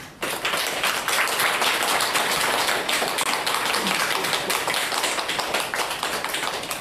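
Applause from many hands clapping, a dense, steady patter of claps that starts suddenly.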